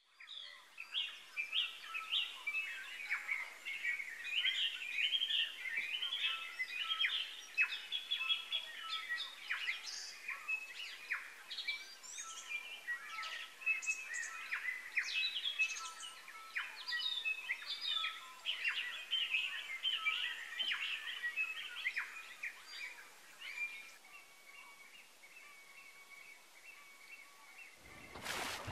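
Dense chorus of songbirds, many overlapping chirps, trills and whistles. It thins out about three-quarters of the way through, leaving a steady high note, and a brief burst of noise comes near the end.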